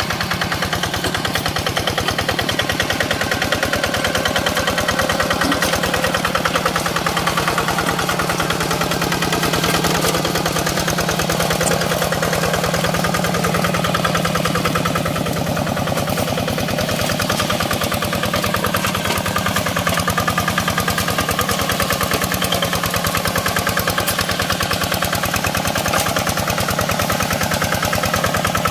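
Single-cylinder diesel engine of a Quick Impala two-wheel hand tractor running steadily, with rapid, even exhaust beats.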